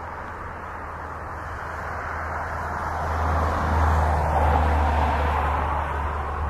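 Boeing 777-300ER's GE90 turbofan engines running at taxi power as the jet rolls slowly along the taxiway. It makes a steady jet rush with a deep rumble that swells about three seconds in and eases near the end.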